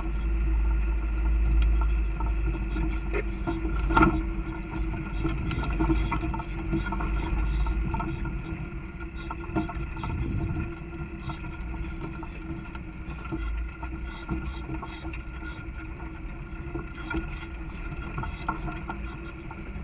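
Four-wheel-drive vehicle crawling over a rocky dirt trail, heard from inside the cab: a steady engine drone with a low rumble that eases after several seconds, small rattles and clicks from the bumps, and one sharp knock about four seconds in.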